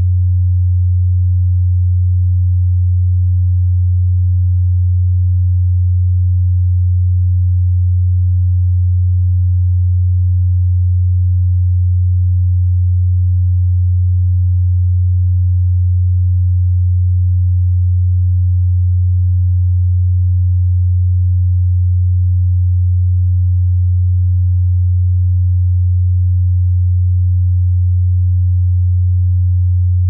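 A pure sine tone at about 90 Hz, the low note F♯2 (G♭2), held perfectly steady with no change in pitch or loudness.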